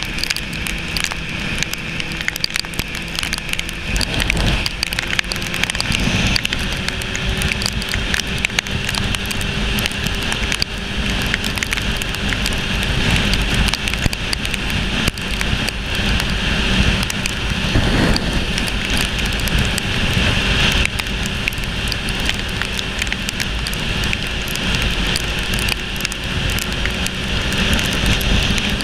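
Sport motorcycle riding at road speed on a wet road: a constant rush of wind noise crackling on the camera microphone, with a steady engine tone underneath that steps up in pitch about six seconds in.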